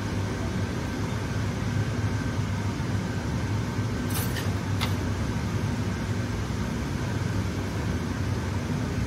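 Steady low mechanical room hum, with two light clinks of a metal spoon against the earthenware soup pot about four and five seconds in.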